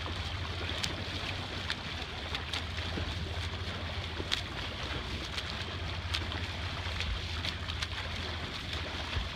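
A freestyle swimmer's arm strokes splashing close beside a kayak, with water slapping the hull: small sharp splashes about once a second over a steady wash of moving water and a low rumble of wind on the microphone.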